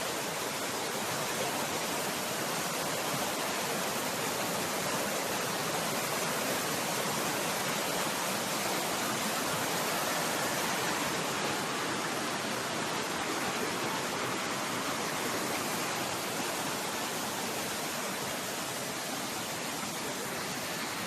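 A waterfall: falling water making a steady, even rush that cuts off abruptly at the end.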